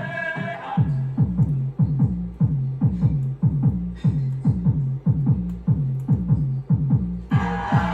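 Hard trance in a DJ mix: a steady kick drum with the highs filtered away, then the full track with its synth lead cutting back in near the end.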